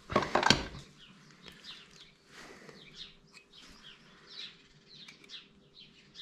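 Birds chirping faintly in short, scattered calls, after a couple of knocks in the first half-second.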